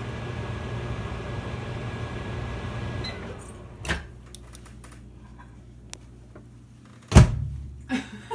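Microwave oven running with a steady hum, then shutting off about three seconds in as the hum winds down. A click follows about a second later, and near the end comes a loud knock and then a lighter one.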